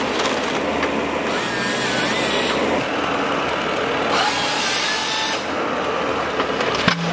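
Vimek 404 T8 thinning harvester's 55 kW CAT diesel engine running under work, with the sound changing abruptly every second or so. Near the end there is a sharp knock.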